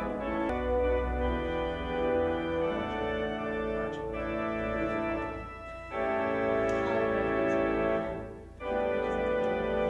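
Organ music: sustained chords that change every few seconds, with the sound dipping briefly twice between chords.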